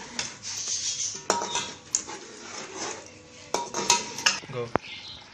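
A spoon stirring a pot of curry, scraping and knocking against the pot with about half a dozen sharp clinks at uneven intervals.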